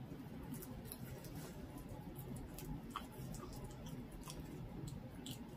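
Dachshund chewing and tearing at a whole raw duck carcass: scattered short wet clicks and smacks, irregular, over a low steady hum.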